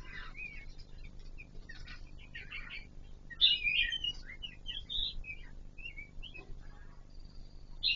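Kon Ka Kinh laughingthrush (chestnut-eared laughingthrush) calling: a run of short chirps and warbling notes, loudest about three and a half seconds in.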